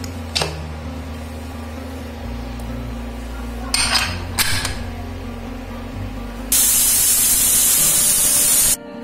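Metal clinks as the whistle weight is fitted onto the vent of a Butterfly pressure cooker's aluminium lid. About six and a half seconds in, a loud steady hiss of steam starts from the whistle as the cooker reaches pressure. It cuts off suddenly near the end.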